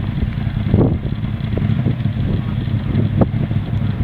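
Polaris RZR side-by-side engine running steadily, with a few sharp knocks, the loudest about a second in.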